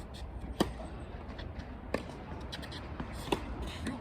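Tennis rally: sharp ball strikes and bounces, the loudest three about a second and a half apart, with fainter taps and shuffling between.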